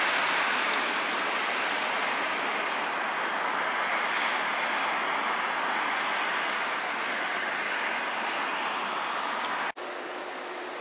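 Qantas Airbus A380's Rolls-Royce Trent 900 jet engines on the landing roll: a steady rushing noise with a thin high whine, slowly fading. Near the end it cuts off abruptly, giving way to the quieter engine noise of a Qantas Airbus A330 taxiing.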